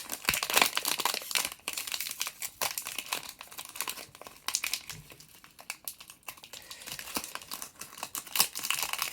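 Foil booster pack wrapper crinkling in the hands as a Pokémon card pack is handled and opened, a dense run of irregular crackles.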